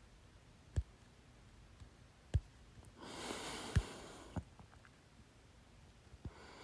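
A person's hiccups: four short, sharp hiccups with the mouth closed, about a second and a half apart, with a breath drawn about three seconds in.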